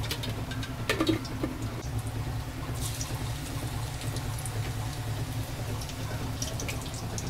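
Finely chopped ginger and garlic sizzling in hot oil in an aluminium pan, the sizzle starting about three seconds in, over a steady low hum, with a few sharp clicks about a second in.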